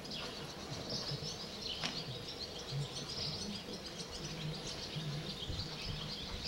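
Small birds chirping repeatedly over steady outdoor background noise.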